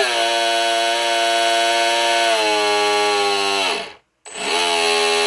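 Brushless outrunner motor (2830, 1000 KV) of an RC boat running up to speed with a loud, steady electric whine. It dips slightly in pitch partway through, winds down and stops about four seconds in, then spins up again with a rising whine and holds.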